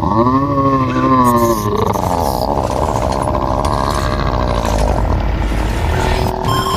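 Horror sound effect: a wavering, pitched cry for about the first two seconds, then a dense rumbling din.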